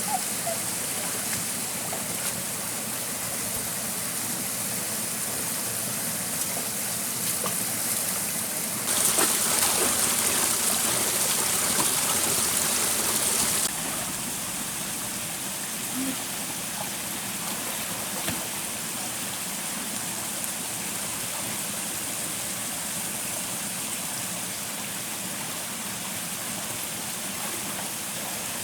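Stream water flowing steadily. For about five seconds in the middle the water rushes louder, starting and stopping abruptly.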